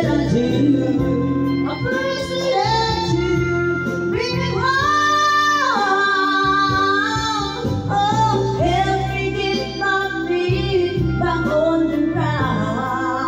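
A man singing into a microphone over a music backing track, with long held notes and vibrato, reaching a long high note about five seconds in.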